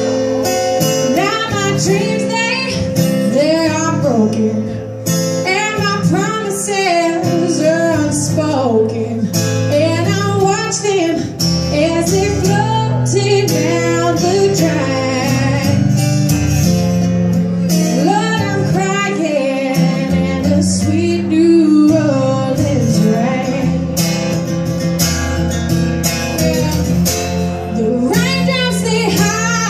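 A woman singing live, accompanying herself on an acoustic guitar.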